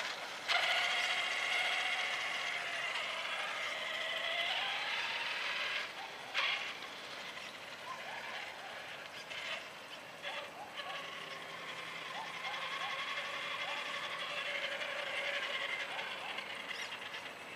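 Small electric RC truck's motor and gears whining as it drives, the pitch sinking as it slows in the first few seconds. A few sharp clicks fall in a quieter stretch midway, then the whine comes back steady at a lower pitch.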